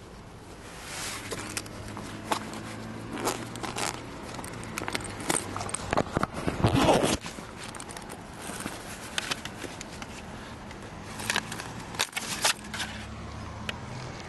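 A hand rummaging through clothes in a zippered fabric bag: rustling, scuffing and handling noise close to the microphone, in irregular bursts with the loudest about halfway through.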